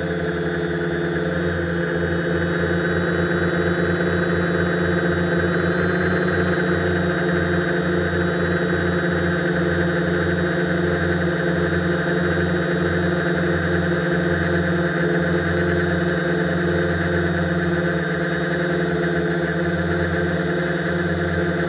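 Quanum Venture quadcopter's brushless motors and propellers holding a hover, picked up by the onboard camera. The sound is a steady whir of several stacked tones, with a fast flutter in the low end.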